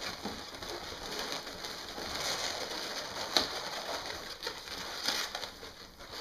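Latex 350 modelling balloons squeaking and rubbing against each other as they are twisted and handled, with one sharp snap a little past halfway.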